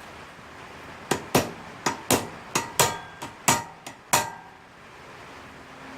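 Hammer striking a pin punch about ten times in quick succession between one and four seconds in, driving the brake caliper's pad retaining pin through. Each blow has a short metallic ring.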